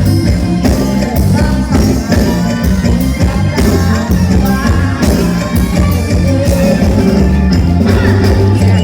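Live band music played from a Thai rot hae parade sound truck: heavy bass and drums keep a steady beat under melodic lines and singing.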